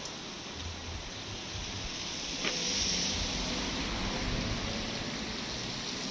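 A car drives past close by on a wet road. Its noise swells about halfway through and then fades as it moves away.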